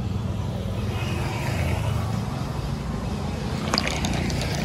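Steady low engine running sound, with a few sharp clicks about four seconds in.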